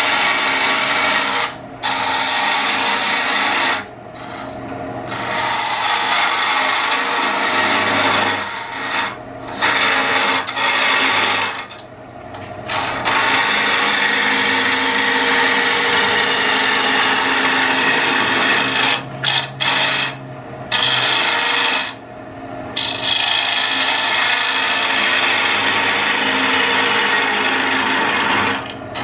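Turning tool cutting into wood spinning on a Jet lathe, a steady rasping hiss of the cut, as the goblet is back cut and parted off its waste block at about 1400 RPM. The cut breaks off briefly every few seconds, then resumes.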